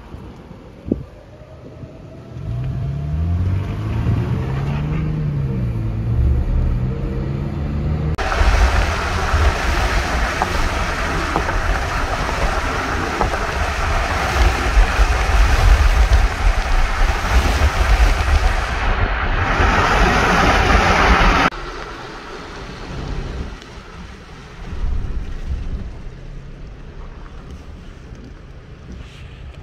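A car engine pulling away, its pitch rising and falling through the gears. Then a loud steady rush of wind and tyre noise from the moving car that cuts off suddenly about 21 seconds in, leaving quieter road noise.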